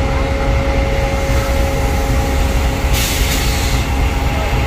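Pakistan Railways GEU40 diesel-electric locomotive standing and idling: a steady low engine rumble with a constant whine over it. A short hiss comes about three seconds in.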